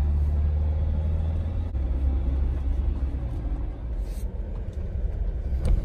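Engine and road rumble heard from inside a car's cabin while driving slowly on a park road. The rumble is steady and low, and a faint hum in it fades out a little under two seconds in, with a small click.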